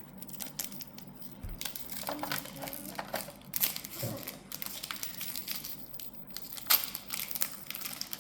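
Crinkling and crackling of a foil Pokémon card booster pack wrapper being handled and opened, in irregular bursts with the loudest crackles about halfway through and near the end.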